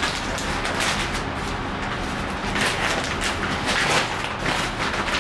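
Brown paper packaging rustling and crinkling in irregular bursts as it is handled and opened, over the steady rush of the room's air conditioning running real loud.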